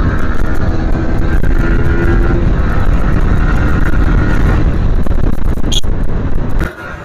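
Motorcycle running at riding speed, its engine note under heavy wind rush on the rider's microphone. The noise drops suddenly near the end.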